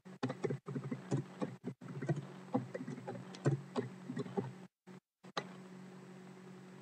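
Computer keyboard typing and clicking in quick irregular taps for about four and a half seconds, then stopping, over a faint steady low hum.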